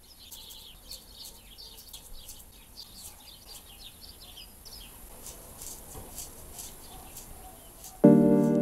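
Small birds chirping and twittering, many quick high chirps. Near the end a loud, sustained music chord comes in suddenly over them.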